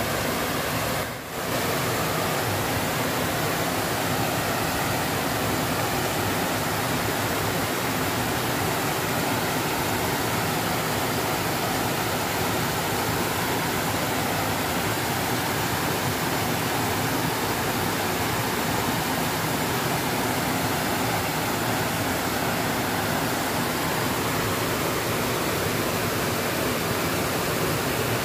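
Water pouring over a small weir into a fast-flowing river: a steady rush of falling water. It briefly drops away about a second in.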